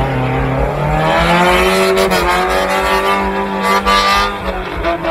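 Off-road 4x4 vehicle's engine running hard under load, its revs dipping and rising several times.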